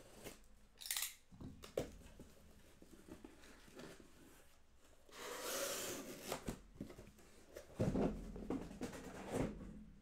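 Cardboard boxes of trading cards being slid out and handled: a short scrape about a second in, a longer sliding, tearing rustle about five seconds in, and a few thumps as boxes are set down near the end.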